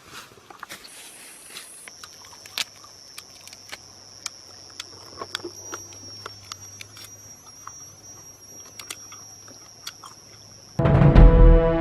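Forest ambience: a steady high-pitched insect drone with scattered soft clicks and rustles. Loud synthesizer music cuts in near the end.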